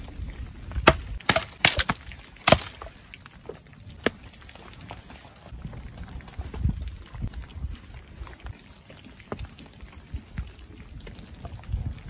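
Campfire burning: a handful of loud, sharp wood cracks and snaps in the first few seconds, then quieter scattered crackling over a low rumble.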